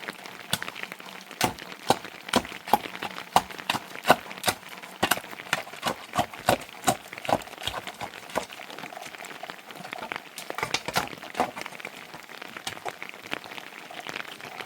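Steady rain hiss with many irregular sharp taps and knocks, several a second.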